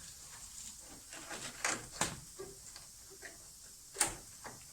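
A few short knocks and clatters of things being handled, the sharpest about two seconds in and again near four seconds in.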